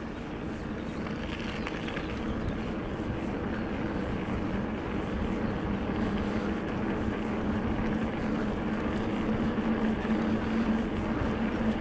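Rockrider E-ST 900 electric mountain bike in motion: a steady low hum with rushing noise, slowly growing louder.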